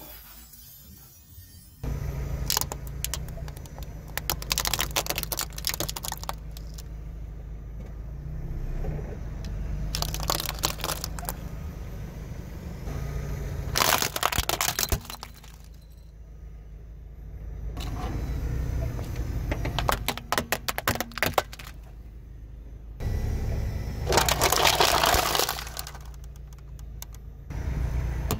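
A car's engine running slowly while its tyre rolls over and crushes brittle objects, including a hollow plastic toy: repeated short bursts of cracking and crunching, several seconds apart, over a steady low engine hum.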